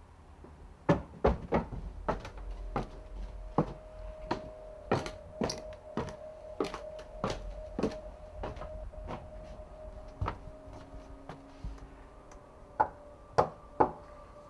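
Footsteps on hard steps, about one and a half a second, as a man walks along a passage and climbs a flight of stairs. Near the end, three loud knocks on a door. A faint steady tone runs underneath.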